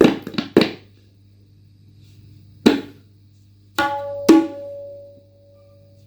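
Tabla being played: a fast run of strokes ends about half a second in, then after a pause a single stroke, then two more strokes, the first leaving a ringing pitched tone that dies away over about a second and a half.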